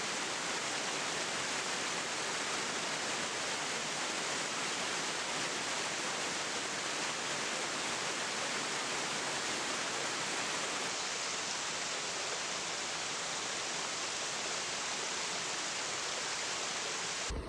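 Steady, even rushing of moving water.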